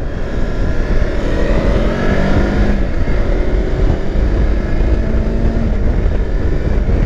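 Kawasaki Versys X300 motorcycle's parallel-twin engine pulling up through the revs under acceleration, then holding a steadier note, over a steady low rumble.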